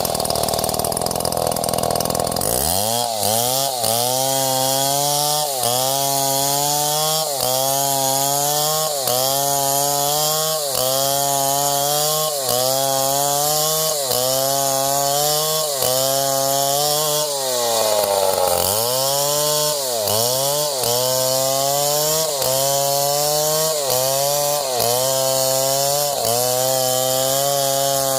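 A chainsaw cuts wood at high revs. Its engine pitch sags and recovers about once a second as the bar works in the cut, with one deeper drop and recovery about two-thirds of the way through.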